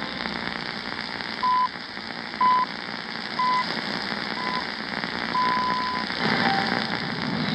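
Shortwave radio reception through steady static hiss: four short beeps a second apart, then a longer one, a time signal marking the hour.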